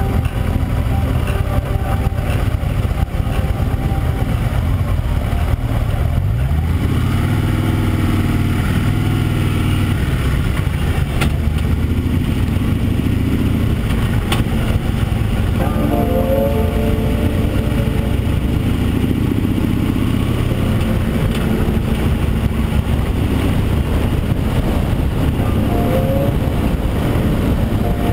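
Touring motorcycle engine running under way, heard from the bike with heavy wind and road rush, the engine note rising as it accelerates about six to eight seconds in.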